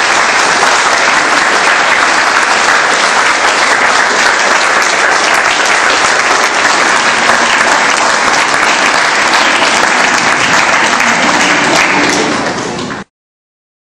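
Audience applauding, dense clapping that holds steady and then cuts off suddenly near the end.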